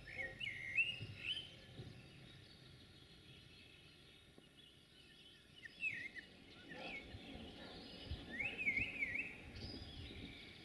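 Songbirds singing quick phrases of rising and falling chirps, in three short bouts, over a faint steady background hiss.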